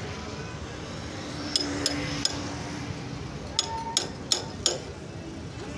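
Sharp metallic clinks and taps from hand tools knocking on metal while a motorcycle is being worked on: three quick ones about a second and a half in, then four more about a second later, over steady background noise.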